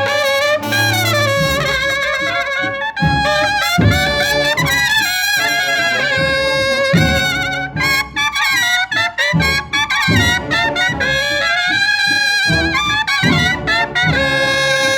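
Brass band playing a slow Holy Week processional march: trumpets carry the melody over lower brass, with regular drum beats.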